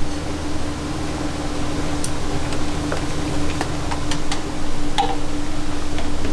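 A steady low mechanical hum and hiss of kitchen machinery at a ramen noodle boiler. About two seconds in, a scatter of light clicks and taps begins, from chopsticks and metal noodle strainer baskets knocking against the stainless-steel boiler.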